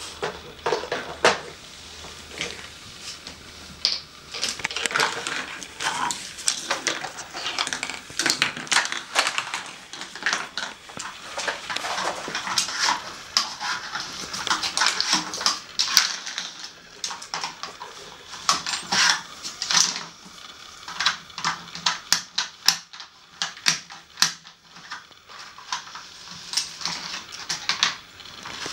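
Hard plastic Nina Ottosson dog treat puzzle clattering and knocking as a dog noses and paws at it for the treats, in quick irregular clicks, with loose plastic pieces rattling on the wood floor.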